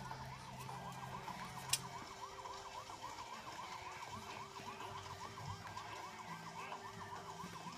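Fire-engine siren sound, a faint electronic yelp sweeping up and down several times a second. A single sharp click a little under two seconds in.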